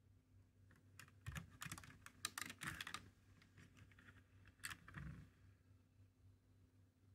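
Faint clicking and light rattling of hands handling the plastic casing of a small battery-powered fan-type mosquito repellent: a dense run of clicks starting about a second in and lasting about two seconds, then a shorter burst about five seconds in.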